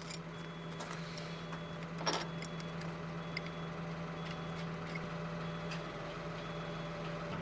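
Steel shims being handled and fitted into a bracket on an excavator quick-fit, giving light metallic clicks, with one louder clack about two seconds in. Under it a machine engine runs steadily, and a faint high beep repeats about once a second.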